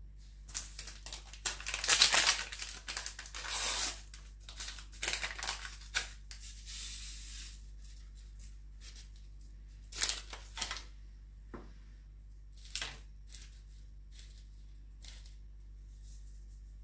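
A paper sachet of vanilla being torn open and crinkled, loudest about two seconds in, with more rustling a few seconds later. Then a few short light clicks and taps.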